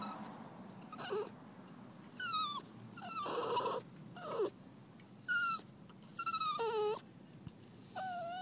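Miniature pinscher whining and crying: about seven short, high-pitched whines in a row, most sliding down in pitch, a couple drawn out with a wavering end.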